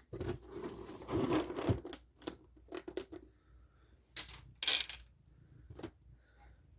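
A bag of cat treats being opened and handled, crinkling and rustling in short irregular bursts.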